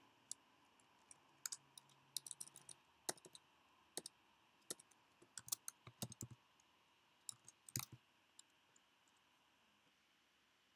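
Faint computer keyboard typing and mouse clicks: scattered single clicks, a quick run of keystrokes about two seconds in, and more clicks through the middle. The clicks stop a couple of seconds before the end.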